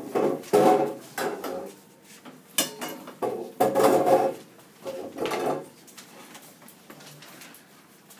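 A run of knocks, clatters and scrapes in short bursts, about six over the first six seconds, with a sharp crack about two and a half seconds in, like furniture and dishes being handled.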